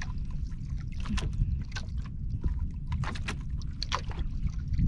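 Water moving against a small fishing boat, with a steady low rumble and scattered small knocks and splashes as the longline is hauled.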